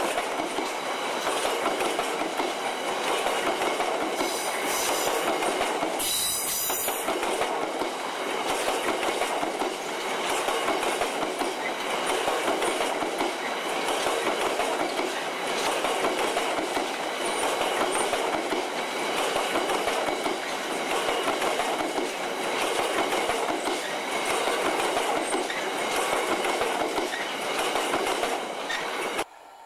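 Freightliner coal hopper wagons rolling past at close range: a steady rumble with the wheels clattering over rail joints, and a brief high-pitched burst about six seconds in. The sound cuts off suddenly near the end.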